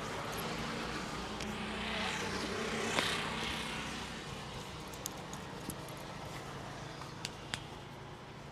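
A vehicle passing on the road, its noise swelling to a peak about three seconds in and then fading away, with a sharp click at the peak and a few faint clicks later on.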